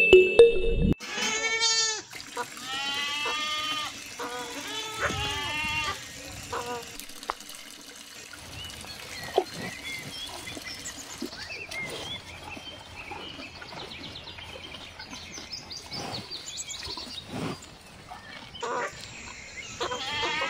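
Bleating of farm animals, a run of several wavering calls in the first few seconds and more near the end, with a faint background hiss between.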